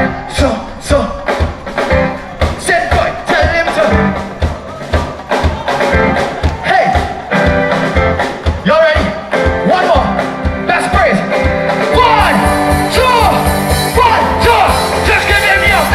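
Live band playing an up-tempo gospel soca song, with a steady, driving drum beat and sung melody over it.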